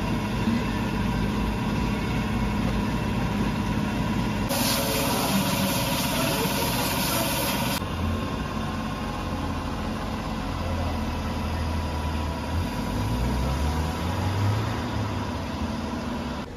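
A vehicle engine idling steadily, with a loud hiss of air lasting about three seconds, starting a few seconds in.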